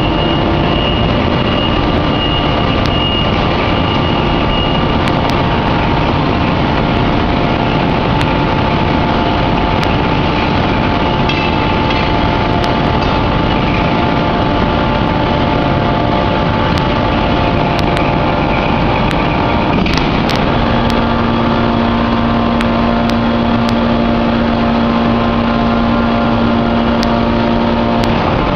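Steady, loud machinery noise from a four-column hydraulic open-die forging press and its pumps as it works a glowing hot block, with a steady hum. A further steady tone comes in about two-thirds of the way through and stops just before the end.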